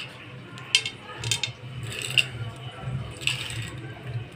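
A few light, sharp clicks and clinks, spaced irregularly, as fried raisins and almonds are sprinkled from a spoon over rice and chicken on a metal serving platter, over a steady low hum.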